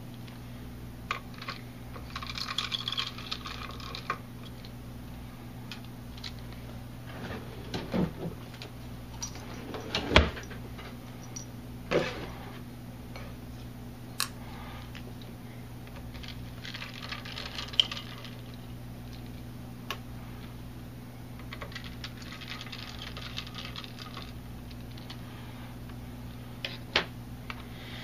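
Spring-loaded screws being undone from the back of a graphics card's heatsink mount: scattered small metallic clicks and clinks, a few louder knocks (the loudest about ten seconds in), and three short stretches of scratchy turning sound. A steady low hum sits underneath.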